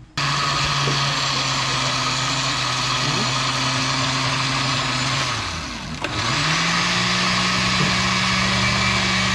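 Oster countertop blender motor switching on and running steadily, puréeing fresh herbs and peppers into seasoning. About five and a half seconds in it winds down, then starts again and runs on at a higher pitch.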